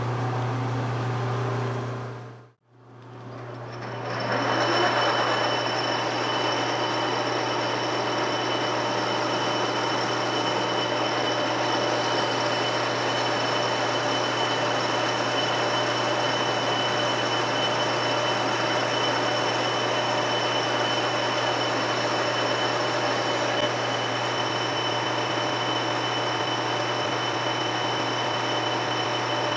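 Metal lathe running under power, spinning a shaft in its four-jaw chuck while a pointed tool undercuts the worn section: a steady machine hum with several steady high tones. The sound drops out for a moment about two and a half seconds in, then returns and runs steadily.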